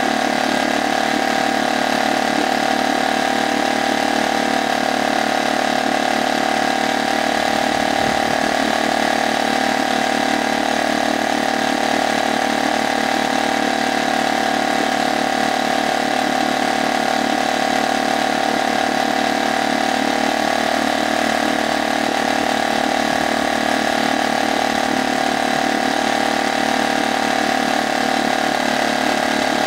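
Brand-new HDX F 2.6 four-stroke single-cylinder outboard motor running steadily in a test barrel, its propeller churning the water.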